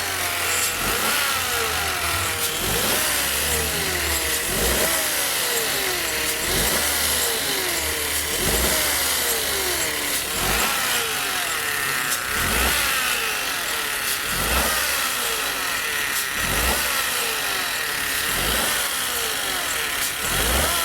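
Peugeot 208's 1.2 three-cylinder engine being blipped repeatedly, about once every two seconds, each rev rising sharply and falling back toward idle. It carries a loud noise from the front of the engine that has grown over time, which the mechanic suspects comes from the accessory belts, the tensioner or their bearings.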